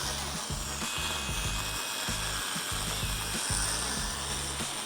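Background music with a steady bass line, over the steady whir of a power mixer stirring a stiff two-part epoxy repair putty that is starting to loosen up.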